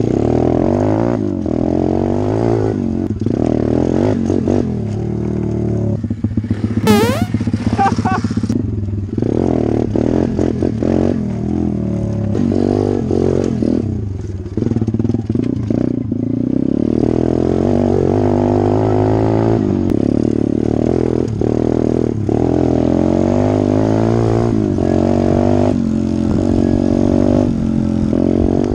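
SSR 125cc pit bike's small single-cylinder engine revving up and down as it is ridden hard over dirt and up a steep dirt hill, with a sharp knock about seven seconds in.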